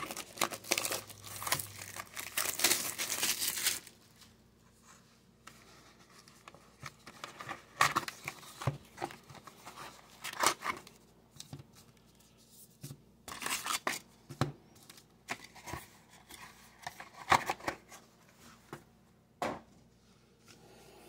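Cellophane shrink-wrap tearing off a trading-card box for about three seconds, followed by scattered crinkles and taps as the cardboard box is opened and foil card packs are handled and set down.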